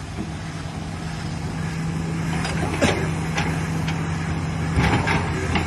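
Diamond-wire stone-cutting saw running with a steady low hum. Several sharp clicks and knocks come in over the second half.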